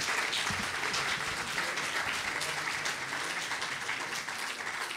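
Audience applauding, a steady patter of many hands clapping that eases slightly toward the end.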